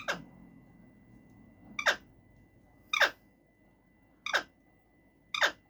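Alexandrine parakeet giving short, sharp calls, five in a row about a second apart, each one sweeping steeply down in pitch.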